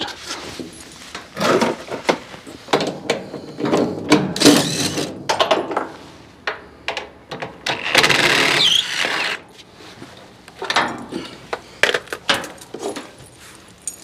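Cordless drill running in several short bursts of a second or so, backing out the packing bolts that hold an outdoor condenser to its shipping pallet, with knocks between the bursts.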